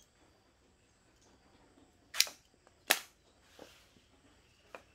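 Pruning shears snipping through a papaya stem: two sharp cuts about a second apart, then a fainter click near the end.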